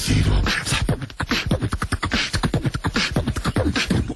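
Beatboxing: a human voice making fast, rhythmic vocal percussion, dubbed over a chipmunk as if the animal were making it.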